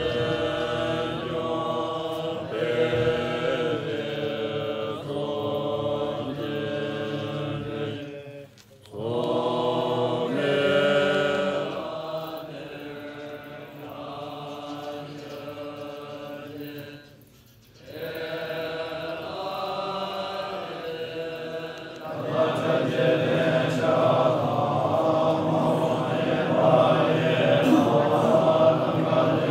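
Group of Bon monks chanting liturgy together in unison, long held recitation lines with two short pauses, about a third and two-thirds of the way through. About 22 seconds in the chanting becomes louder and fuller.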